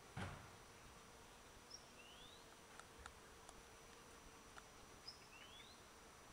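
Near silence: faint outdoor background with a soft knock just after the start and a few scattered faint ticks. Twice, a short high note is followed by a quick rising whistle.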